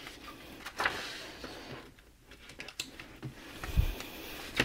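Paper pages of a spiral-bound workbook being turned and handled: scattered rustles and sharp paper flicks, with a soft low thump a little before the end.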